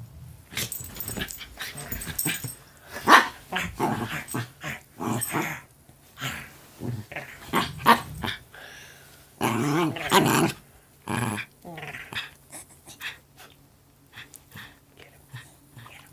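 Poodle mixes play-growling, with growls and short yips in irregular bursts, quieter near the end.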